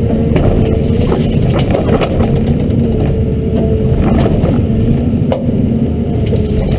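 Hyundai R210 LC-7 excavator's diesel engine running under load with a steady hydraulic whine, while the rake and thumb tear into willows, giving scattered sharp cracks and snaps of breaking branches.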